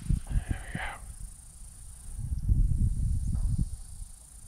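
Low rumbling buffeting on an action camera's microphone, in two bouts: one in the first second and a longer one from about two seconds in. It is typical of wind or handling noise. A faint steady high hiss runs underneath.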